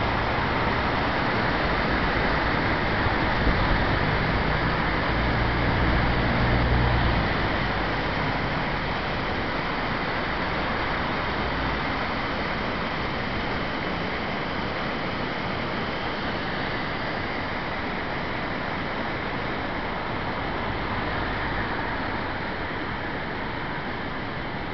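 Floodwater pouring over a river weir: a steady rushing roar of white water. A heavier low rumble runs through the first seven seconds or so.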